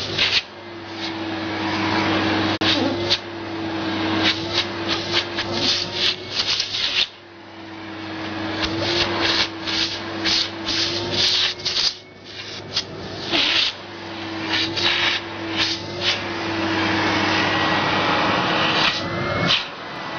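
AEG Vampyr 6100 electronic canister vacuum cleaner running while its hose is choked off by hand to block the airflow, as when testing the dust bag indicator. Its sound drops sharply several times and builds back up over a few seconds each time, with rubbing and knocking of the hand on the hose.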